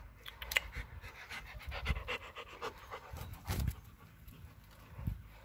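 Alaskan malamute panting close to the microphone, in short, irregular breaths.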